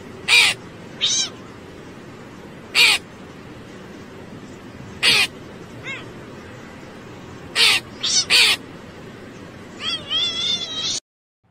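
Cat calling at a crow: about eight short, high-pitched meows at irregular intervals, then a run of quick, wavering chirps near the end, over a steady background hiss.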